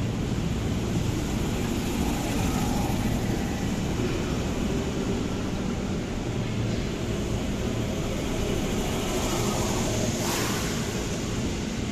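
Electric commuter train rolling slowly alongside a platform: a steady rumble of wheels and running gear with a faint whine from the motors. A brief hiss comes about ten seconds in.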